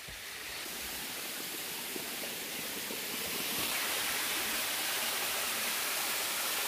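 Small waterfall cascading over rock ledges into a pool: a steady rush of falling water that grows gradually louder.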